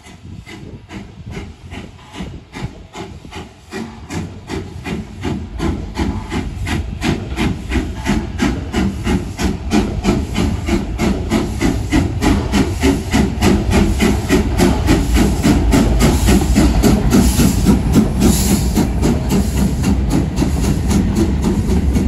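Steam locomotive working towards and past the listener, its exhaust beating in a steady run of rapid chuffs that grow louder as it nears. A short hiss of steam comes through about seventeen seconds in.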